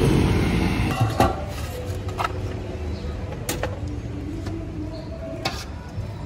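Loud street traffic noise, as from a passing motor vehicle, breaks off about a second in. Then, over quieter background, come a few sharp clinks and knocks from a ladle and steel pots.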